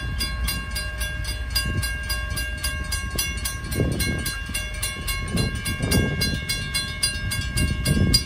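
Railroad crossing warning bell starting up and ringing rapidly and evenly, about five strikes a second: the crossing has activated for an approaching train.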